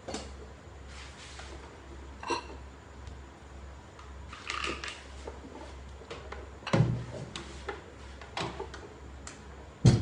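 Kitchen utensils and containers being handled and set down on a counter: scattered light clicks and clinks, one small ringing knock about two seconds in, and two heavier thumps, one about two-thirds of the way through and one at the very end.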